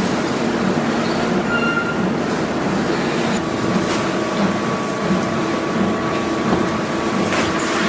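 Factory processing machinery running steadily: a continuous mechanical noise with a regular pulse about twice a second, joined by a thin steady whine a few seconds in.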